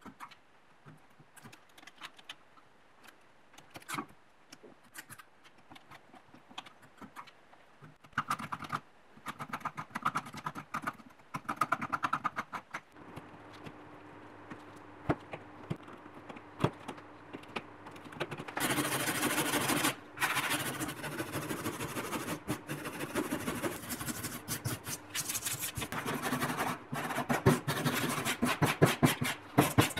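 Hand tools working a decayed, worm-eaten old oak board: scattered picking and scratching as rotten wood is dug out, then, about two-thirds of the way in, fast repeated brushing strokes across the surface.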